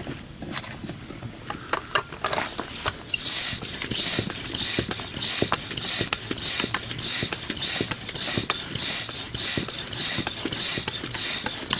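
Manual air pump inflating a small pneumatic wagon tire through a hose clamped on its valve: a hiss of air on each stroke in a steady rhythm of about two strokes a second, starting about three seconds in. Before that, clicks and rattles of the hose chuck being fitted onto the valve.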